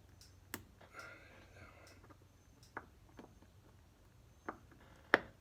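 A few sharp, scattered clicks and taps of small hand tools against metal carburetor parts, the loudest near the end.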